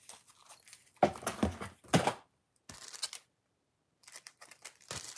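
Plastic packaging bag being handled and torn open, in a few short rustling, tearing bursts with brief pauses between them.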